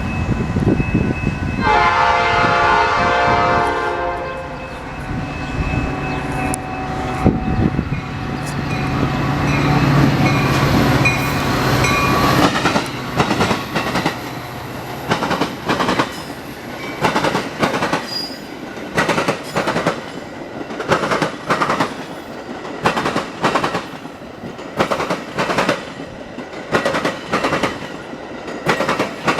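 A Metra commuter train passing: its air horn sounds for about two seconds, with the locomotive engine rumbling underneath. From about halfway through, the wheels clack rhythmically over the rail joints as the cars roll by.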